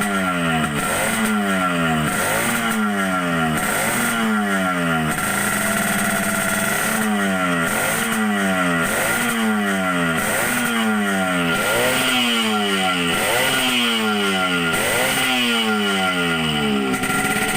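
Yamaha RX-King two-stroke single-cylinder engine, freshly assembled on a Thailand YP2 block, revved in quick blips about once a second, the revs falling back after each one. There is a brief steady stretch about six seconds in.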